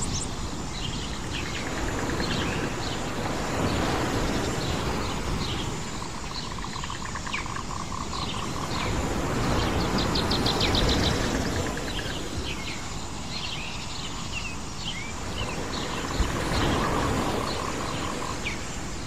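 Many birds chirping and trilling over a steady rushing background that swells and eases every six seconds or so.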